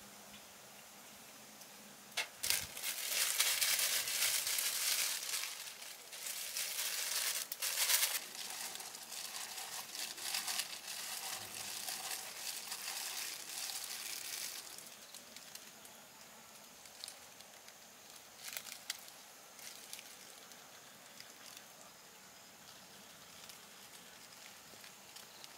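Thin plastic gloves crinkling loudly for about twelve seconds as they are pulled on and as seasoned pork pieces are mixed by hand in a plastic tub. After that it drops to a low background with a couple of light clicks.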